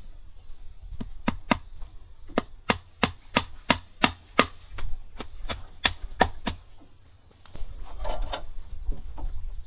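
A steady run of sharp chopping strikes, about three a second, that stop about six and a half seconds in.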